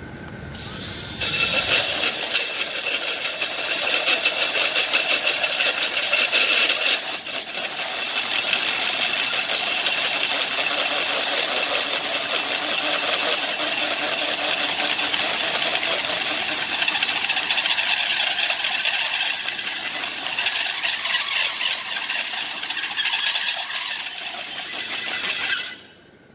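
Cordless drill driving a 3-inch hole saw through the centre of a cast-iron brake rotor: a loud, harsh, high-pitched metal-cutting noise. It starts about a second in, is uneven for the first few seconds, then runs steadily and stops abruptly just before the end.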